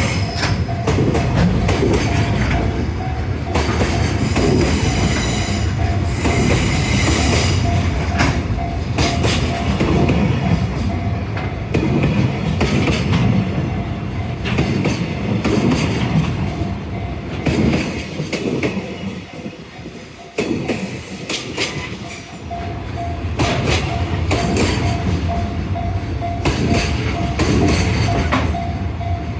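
Koki container wagons of a JR Freight train rolling past, their wheels clattering loudly over the rail joints in rapid repeated clacks. It eases off briefly about twenty seconds in. Behind it a level-crossing alarm bell rings on one repeating tone.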